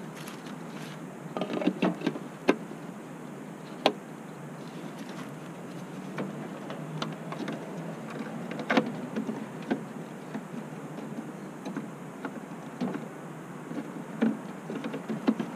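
Plastic taillight housing of a 2009 Ram 1500 being handled and fitted at its opening in the truck body: scattered clicks and light knocks of plastic, a few of them sharp, with a cluster about two seconds in and another run near the end.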